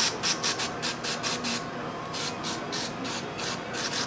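Aerosol carburetor cleaner sprayed through its straw in quick short squirts, about four hisses a second with a brief pause midway. It is being shot into the jets and passages of a motorcycle's four-carburetor bank to clear them.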